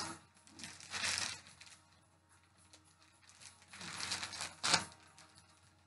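Clear plastic bag crinkling as it is handled, in a few short bursts separated by near silence.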